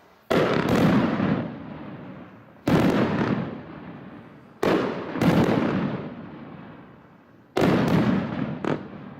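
Sky Crafter 'Redemption' firework going off: loud bangs every two seconds or so, several coming in quick pairs, each dying away over a second or two.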